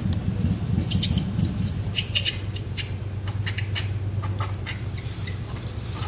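Outdoor ambience: a quick run of short, high chirps starting about a second in and thinning out near the end, over a steady low rumble.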